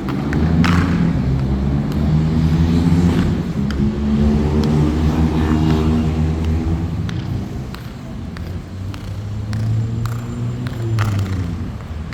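A motor vehicle's engine running close by, its pitch rising and falling throughout. Now and then a sharp, echoing click of a metal heel on hard ground sounds through it.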